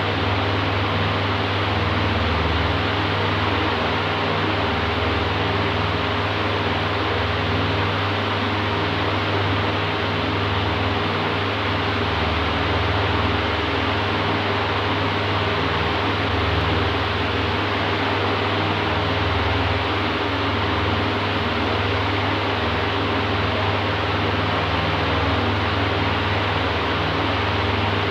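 Oscillating electric fan running steadily: an even rush of air over a low motor hum.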